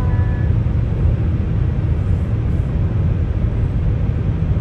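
Steady low rumble of road and engine noise inside a car's cabin while driving on a highway.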